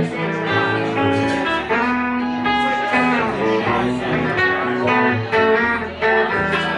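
Live country band playing an instrumental break: electric guitar picking a run of notes over upright bass.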